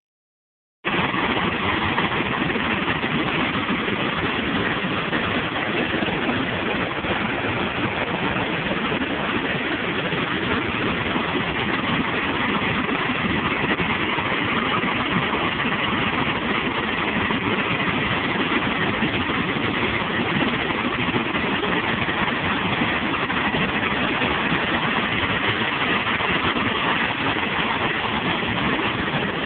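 Waterfall: a steady, even rush of falling water, starting about a second in.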